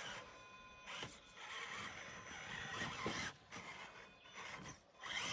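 Small electric motor of an RC rock-crawler truck whining in spurts under load as the truck tries to climb off a rock it is stuck on. The high whine is clearest for about the first three seconds.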